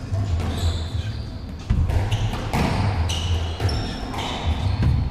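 Squash rally: the ball is struck by rackets and smacks off the court walls several times, with short high squeaks of court shoes on the wooden floor, over a low steady hum.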